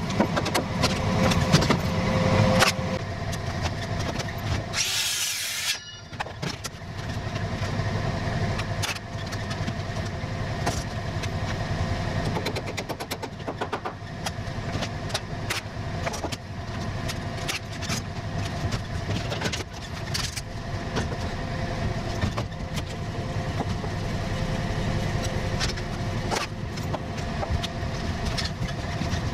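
Engine running steadily, with scattered light clicks and knocks and a brief hiss about five seconds in.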